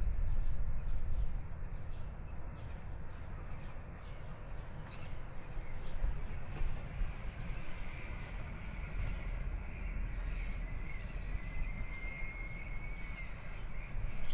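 Strong wind buffeting the microphone: a steady low rumble with a hiss over it. A faint, thin whistle holds for about two seconds near the end.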